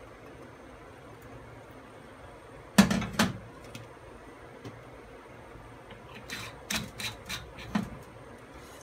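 Olive oil bottle set down with a sharp knock about three seconds in, followed by a scatter of light clicks and taps near the end, over a faint steady hiss.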